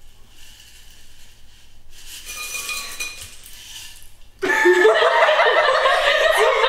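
Faint clinks of a glass jar and bowl being handled on a kitchen counter, then about four seconds in, two girls suddenly burst into loud laughter.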